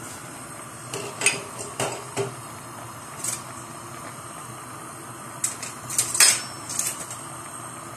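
Metal utensils clinking against a metal cooking pot: scattered clinks in the first few seconds, then a quick cluster of them about five and a half to seven seconds in. Under them runs the steady noise of potatoes boiling on a gas burner.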